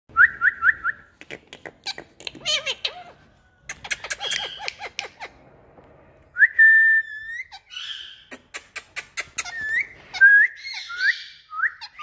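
Indian ringneck parrot whistling: a quick run of five short rising whistles, then a stretch of clicks and scratchy noises, then a longer held whistle and several more short rising whistles near the end.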